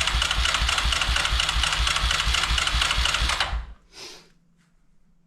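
Electric starter cranking the Yamaha Kodiak 450's single-cylinder engine with a steady rhythmic chug of about five or six strokes a second; it does not catch and cuts off after about three and a half seconds.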